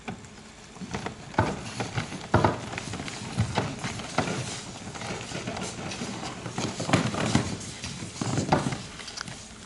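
Footsteps of a large crowd of people walking across a stage floor, many irregular overlapping steps and thuds, starting about a second in.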